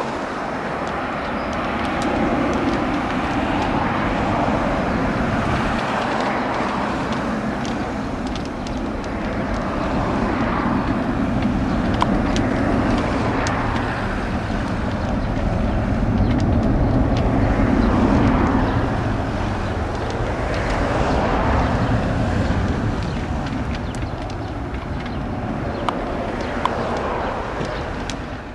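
Airbus A330-300 jet engines at take-off and climb power: a loud, steady roar with a deep rumble that swells and eases every few seconds as the airliner climbs away.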